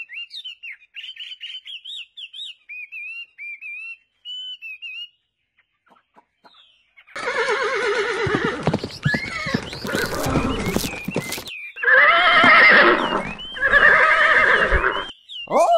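Small birds chirping for the first few seconds. After a short pause come loud horse whinnies and neighs in several long calls, the last one falling in pitch near the end.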